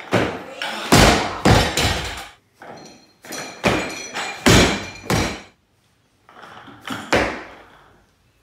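Heavily loaded Olympic barbell with rubber bumper plates dropped onto a lifting platform: heavy thuds as the plates hit and bounce, with the bar and plates rattling and ringing metallically. The impacts come in three bunches, about a second in, in the middle, and near the end.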